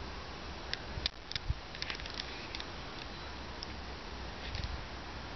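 Light clicks and rustles of a handheld camera being moved and handled, scattered through the first few seconds, over a steady low hum and hiss.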